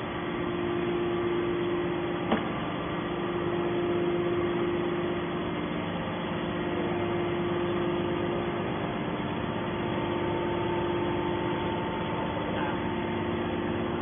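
Hydraulic scrap-metal baler's power unit idling, a steady hum with a strong low tone, with one sharp click a little over two seconds in.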